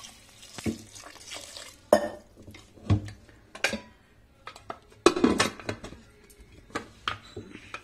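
Water pouring into an aluminium pressure cooker full of taro corms, then the aluminium pot and its lid clanking and knocking as they are handled and the lid is fitted. The loudest clank comes about five seconds in.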